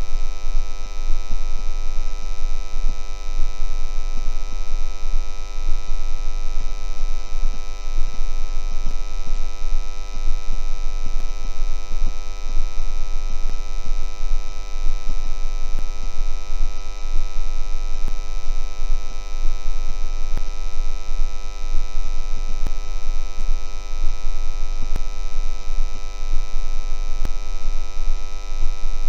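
Electrical transformer buzzing: a steady, unchanging low mains hum with a rich stack of overtones.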